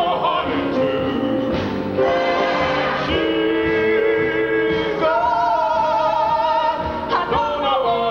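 A woman singing long held notes in an operatic style with a wide vibrato, over musical accompaniment.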